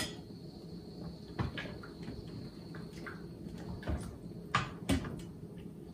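A spoon knocking and scraping against the stainless steel inner pot of an Instant Pot while stirring, a few separate clinks with the loudest two near the end.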